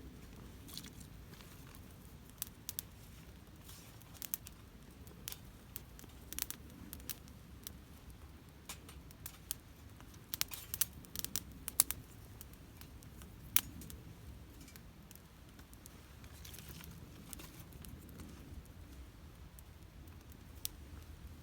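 Wood campfire crackling: scattered sharp pops and snaps, bunched together about ten to twelve seconds in, over a low steady rumble.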